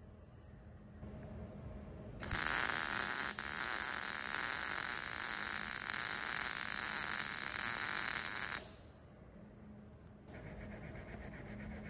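MIG welder laying a bead on steel tube: the arc starts about two seconds in, sizzles steadily for about six seconds, and stops abruptly.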